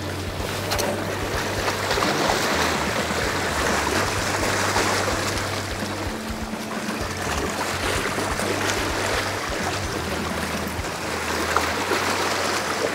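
Sea water washing and lapping against the rocks of a rocky shoreline: a steady rushing noise.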